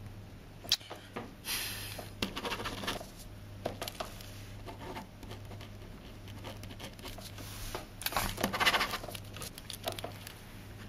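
Sheets of printer paper being handled on a tabletop: a sharp tap, then two spells of rustling and sliding as pages are moved and laid down, one about a second and a half in and a louder one about eight seconds in, over a steady low hum.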